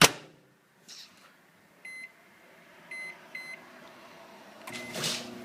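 A microwave oven: a sharp clack right at the start, then three short keypad beeps, and about 4.7 seconds in the oven starts running with a steady hum.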